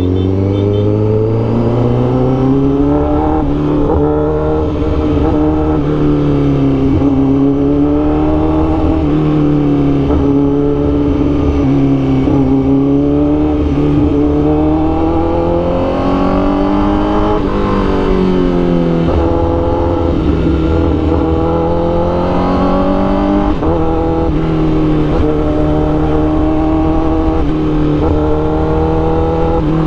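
Honda CBR1000RR-R Fireblade's inline-four engine through an SC Project CRT exhaust, with a Rapid Bike Racing module fitted, pulling hard through first and into second gear and easing off again, its pitch rising and falling over and over. Second gear comes in near the end; the rider calls it "galit" (angry) and the power livelier since the Rapid Bike was fitted.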